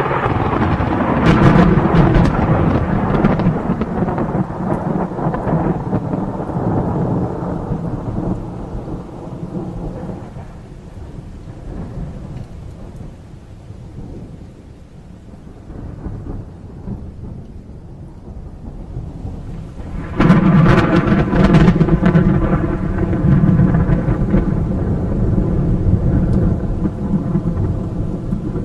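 Thunderstorm: two long peals of thunder, the first already rolling at the start and fading out over about ten seconds, the second breaking sharply with a crack about twenty seconds in and rumbling on, over steady rain.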